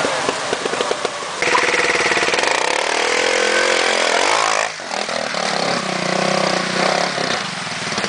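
Trials motorcycle engine revving under load, its pitch rising and falling as the bike climbs a steep rock step, with a short drop in revs about five seconds in.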